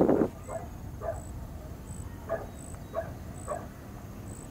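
A dog barking: about five short barks, half a second to a second apart, after a brief noisy burst at the very start.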